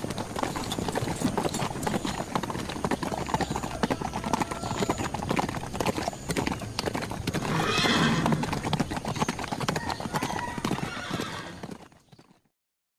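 A herd of horses galloping and trotting on grass, many hoofbeats overlapping, with a horse whinnying about eight seconds in. The hoofbeats fade out near the end.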